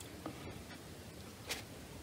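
Faint handling sounds of a watercolour brush, with a light tick early and a sharper click about one and a half seconds in as the brush is dabbed into a plastic paint palette.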